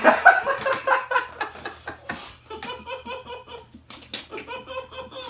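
Young men laughing in repeated bursts, one of them trying to hold it in with his mouth full of water.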